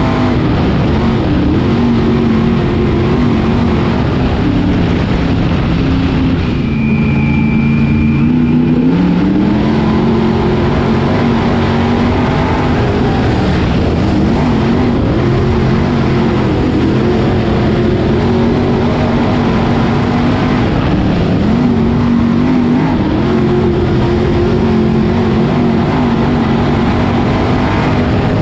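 Dirt Late Model Sportsman's V8, a GM 602 crate engine, running hard at racing speed, heard from inside the cockpit. The engine note drops about seven seconds in and climbs back up, with a shorter dip later on.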